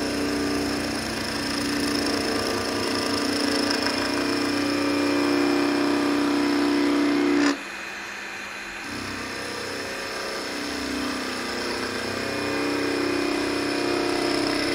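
Spinning magnolia blank on a wood lathe being cut by a hand-held gouge, shavings tearing off in a steady cutting noise. The cut breaks off for about a second just past the middle, then resumes and builds again.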